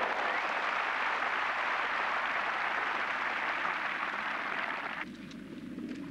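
Tennis stadium crowd applauding after a point, a dense even clapping that stops fairly abruptly about five seconds in.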